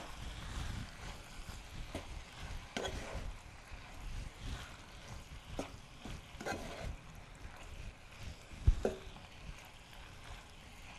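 Wooden spoon stirring and tossing pasta stir-fry in a nonstick pan: soft scrapes and a few light knocks of the spoon on the pan, the sharpest knock coming about three quarters of the way through.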